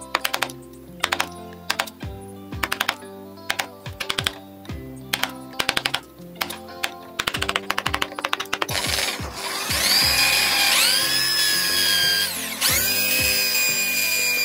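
Wood chisel chipping out a recess in wood, heard as clusters of quick sharp clicks. Past the middle, an electric hand drill spins up with a rising whine and bores into the wood, stops briefly, then starts again and runs on. Background music plays underneath.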